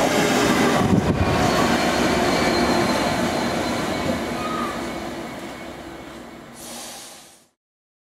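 A DB Schenker Class 66 diesel freight locomotive runs past close by and away with its train. Its two-stroke V12 and the rolling wheels make steady rail noise, with a thin squeal from the wheels and a knock about a second in. The noise fades from about halfway and then cuts off near the end.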